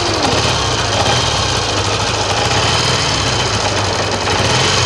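Vintage motorcycle engine idling steadily, freshly started on the first kick.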